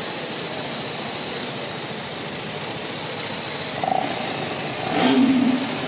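TVS Apache RR 310's single-cylinder engine running steadily at idle, then revved briefly twice near the end, the second rev the louder.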